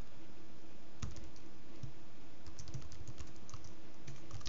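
Typing on a computer keyboard: a single keystroke about a second in, then a quick run of keystrokes from about halfway through, over a faint steady hum.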